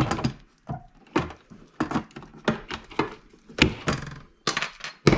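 Aviation snips cutting D-sub connector ports off a circuit board: a quick, irregular series of sharp snaps and clicks.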